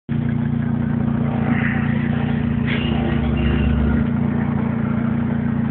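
Car engine running steadily at idle, a constant low hum with a noisy wash over it.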